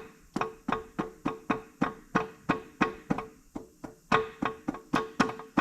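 Music of plucked guitar-like notes in an even run, about three or four a second.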